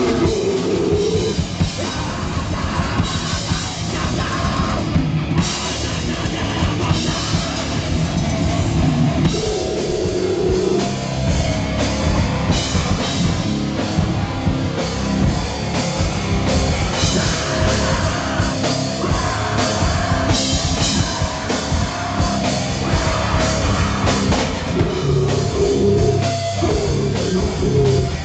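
Live rock band playing loud, heavy-metal-style music with a drum kit and guitars.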